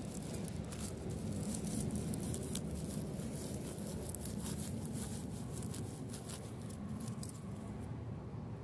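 A knife cutting through the stems of an oyster mushroom cluster at ground level, with small crackles and snaps from the dry grass and leaf litter around it over a steady low rumble. The crackles are densest in the first half and thin out towards the end.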